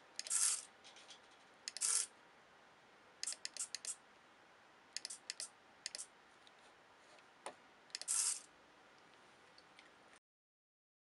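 Hobby servo on a pen plotter moving the brush pen up and down, heard as three short whirring bursts, with runs of quick clicks between them.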